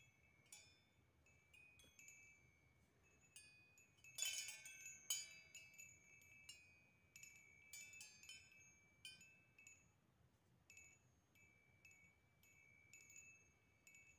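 Faint metal tube wind chime swaying, its tubes struck again and again and ringing on at a few clear pitches, with a cluster of louder strikes about four to five seconds in.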